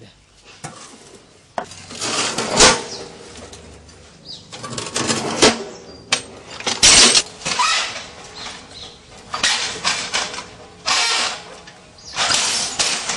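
An Auram earth-block press being worked to make a compressed earth block, giving irregular bursts of scraping and metal clanking with a few sharp knocks.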